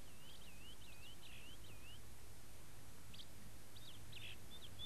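Faint birds chirping in short, wavy, high-pitched calls that come in clusters, over steady tape hiss and a low hum.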